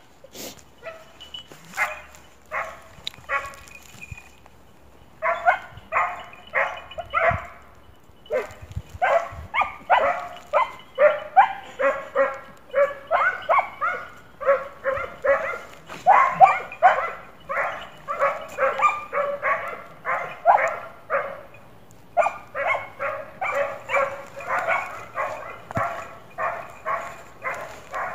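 Scent hound giving tongue on a hare's trail: repeated short barks, a few spaced ones at first, then a near-continuous run of about two or three barks a second from about five seconds in, with a brief lull past the twenty-second mark. The baying signals the hound working the hare's stale scent and driving it.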